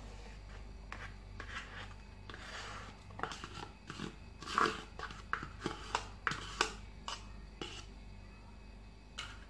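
A metal spoon scraping ice cream out of a tub and knocking against a stainless steel mixer jar: a run of short scrapes and taps, thickest from about three to eight seconds in.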